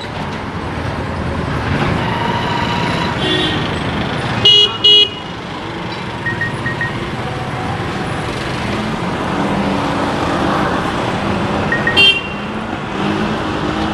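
Street traffic noise with vehicle horns honking: two short loud toots about four and a half seconds in, a softer one just before them and another near the end, over a steady traffic hum.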